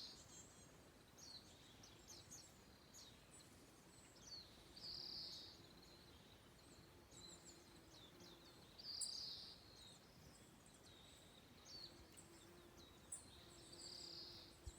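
Faint wild birdsong: many short, high chirps and calls, with a buzzy trilled song phrase repeating about every four to five seconds.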